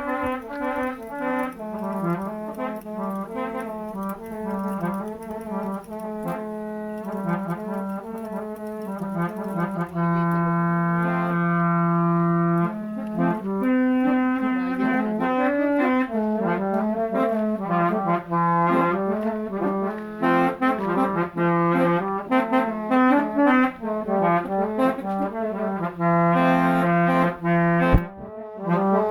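Old-style multi-tone klakson horns played by hand as music: a tune of shifting notes over a steady low droning note, with a brief break near the end.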